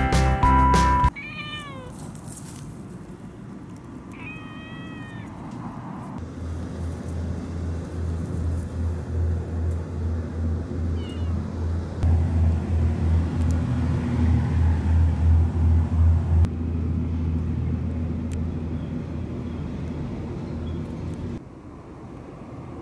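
A domestic cat meows twice: a short meow falling in pitch, then a longer one a few seconds later. A low, throbbing rumble starts about six seconds in and stops around sixteen seconds.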